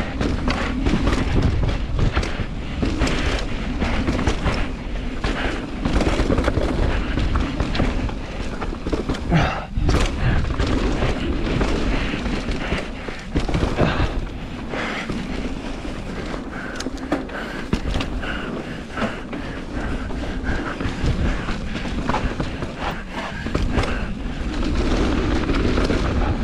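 Mountain bike descending a rough, rocky trail at speed: a constant rumble of wind on the microphone and tyres on the ground, broken by repeated thuds and rattles as the bike hits bumps and landings. Heavier knocks come about ten and thirteen seconds in.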